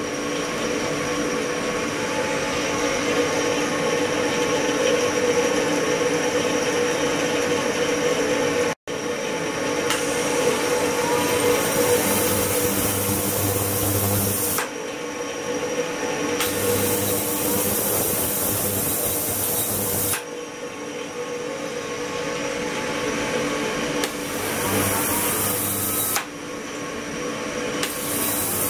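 Ultrasonic tank with liquid circulation in operation: a steady mechanical hum with a few steady tones. Over it, a loud high hiss switches on and off every few seconds. The sound drops out for an instant about nine seconds in.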